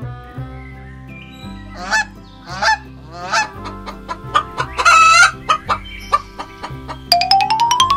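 Playful background music with held notes. Over it come three short pitched calls that bend in pitch, a longer wavering call a couple of seconds later, and a steadily rising whistle-like glide near the end.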